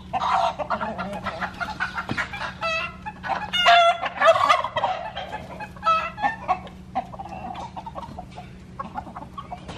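A flock of chickens and roosters clucking and calling in many short overlapping calls, busiest in the first half and thinning out after about seven seconds.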